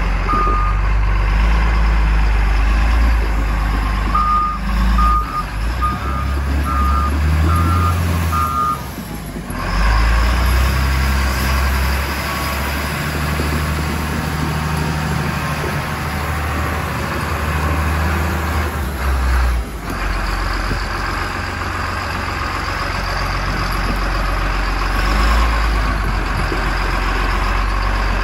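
John Deere wheel loader's diesel engine running close by, its low rumble rising and falling. A reversing alarm beeps about six times, about four to eight seconds in.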